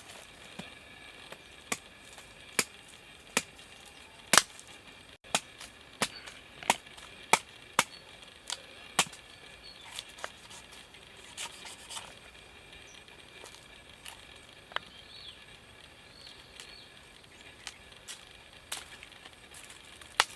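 A blade chopping into wood: sharp single strikes, irregular, about one a second for the first nine seconds or so, then more spaced out.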